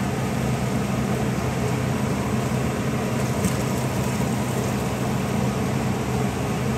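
A steady low mechanical hum, as of a fan or motor, runs under the splashing of boiling water poured from a glass measuring cup onto raw rice in a metal pot.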